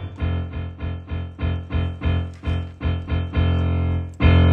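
A piano-like keyboard melody playing on its own in short notes, about four a second, ending on a longer held note near the end.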